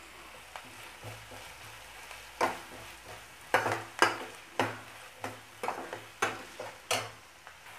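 Chopped onions sautéing in oil in a pan, sizzling faintly, while a spoon stirs them and knocks and scrapes against the pan about eight times, starting a couple of seconds in.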